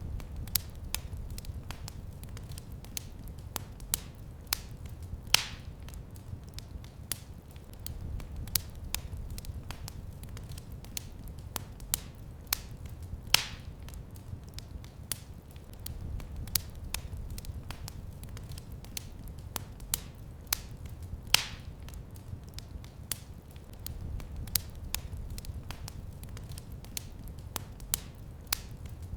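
Wood fire crackling in a fireplace: a steady run of small sharp snaps, with a louder pop about every eight seconds, over a low rumble that swells and eases.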